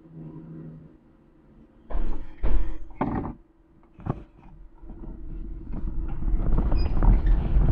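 A few loud clunks inside the electric minibus, then it pulls away and the rumble of its tyres on the cobblestones grows steadily louder.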